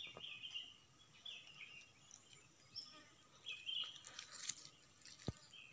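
Birds chirping in short calls every second or so, over a faint steady high-pitched buzz. A single sharp click comes near the end.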